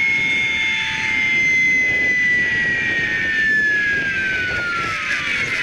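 Radio-controlled model helicopter with a TBS Mini engine-sound module giving a high turbine whine over a rushing noise. The whine holds nearly steady, then slides down in pitch near the end.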